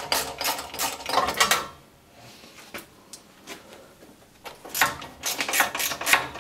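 Ratchet wrench clicking in quick, even strokes as it undoes the bolts on a lawnmower engine's starter cover. The clicking stops for about three seconds in the middle, then starts again.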